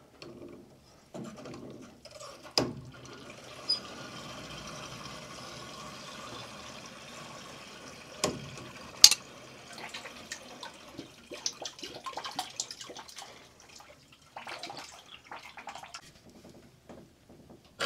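Water trickling and hissing from the threaded fitting of an old Amtrol Fill-Trol expansion tank as it is loosened off a boiler. A few sharp metal clicks from tongue-and-groove pliers come through, the loudest about two and a half seconds in and again about nine seconds in, and scattered handling noises follow as the tank is turned off by hand.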